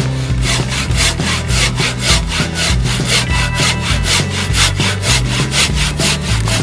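Handsaw cutting through a wooden timber in quick, even strokes, about five a second, starting about half a second in.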